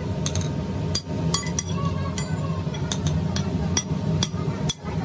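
Small hammer tapping forged steel pickaxe heads on an anvil block: about eight irregular, sharp metallic clinks, each with a brief ring, over a steady low hum.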